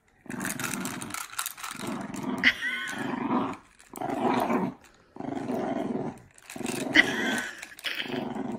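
A small dog growling in play while tugging a rope toy: a string of growls, each about a second long, with short breaks between.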